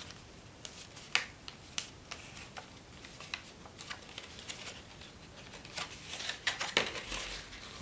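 Stiff elephant-hide origami paper rustling and crinkling in the hands as a long strip is folded and creased, with scattered sharp crackles that grow busier near the end.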